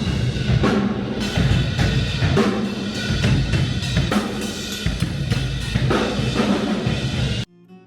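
Music driven by a full drum kit, with a steady beat of bass drum and snare. It cuts off abruptly near the end.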